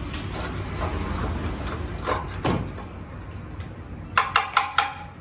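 Rubbing and scraping as a dirty motorcycle part is cleaned of sand, then four quick, sharp knocks with a short metallic ring near the end.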